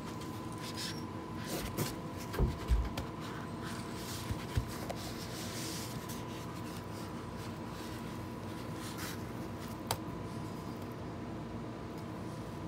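Cardboard model-aircraft box being handled and turned over by hand: cardboard rubbing and sliding against the hands, with a few dull thumps about two and a half seconds in and a single sharp tap near ten seconds. A faint steady high tone sits underneath.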